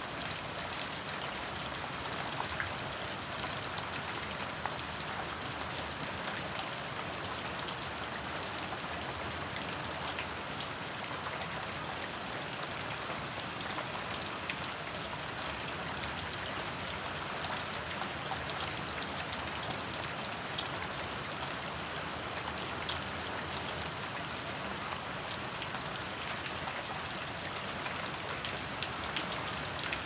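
Soft, quiet rain falling steadily: a dense, even patter of fine drops over a constant hiss.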